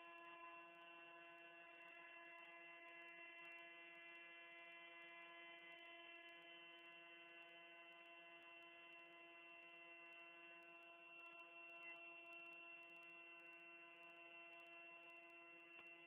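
CNC milling machine running a job, a faint steady whine of several fixed tones as its axis drives feed slowly along one axis.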